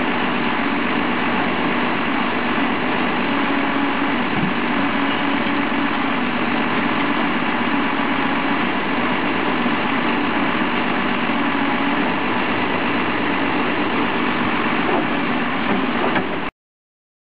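Volvo BM 6300 backhoe loader's Cummins diesel engine running steadily at an even speed, cutting off suddenly near the end.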